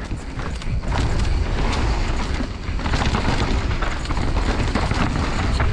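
Mountain bike riding fast down a rough dirt trail: steady low rumble of wind and tyres on the ground, with constant rattling and knocking from the bike over bumps.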